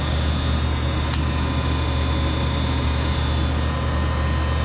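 Electric fan running with a steady hum, with one sharp click about a second in.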